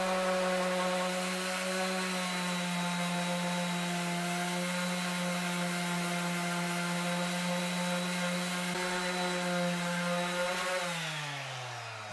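Electric random orbital sander running steadily against a wooden block held in a bench vise. It is switched off about eleven seconds in, and its pitch falls as the motor winds down.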